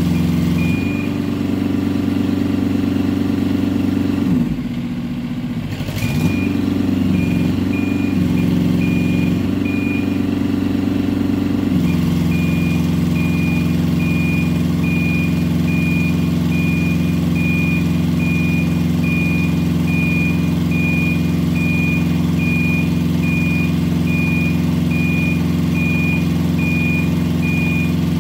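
Platform Basket Spider 18.90 Pro tracked spider lift running under remote control, its power unit and hydraulics droning steadily as the boom is raised. A high motion-alarm beep repeats at a regular pace over the drone. The drone sags briefly about five seconds in and settles into an even pitch about halfway through.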